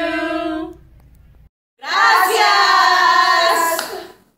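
Group voices calling out together in long, drawn-out, sung-like notes: one held call fades out under a second in, then after a brief silence several voices join in a loud held call lasting about two seconds.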